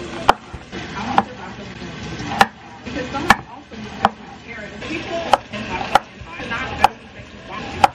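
Chef's knife cutting through small red-skinned potatoes and knocking on a wooden cutting board, about one sharp knock a second, nine in all.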